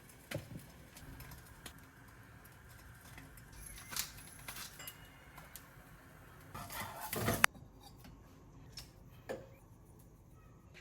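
Scattered light clinks and taps of dishes and utensils being handled in a kitchen, with a longer clatter past the middle that ends in one sharp clack.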